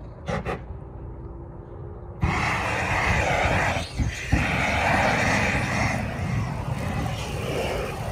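A propane torch and a dry Christmas tree catching fire: a steady rushing hiss starts suddenly about two seconds in and keeps going as the flames grow, with a brief dip around the middle.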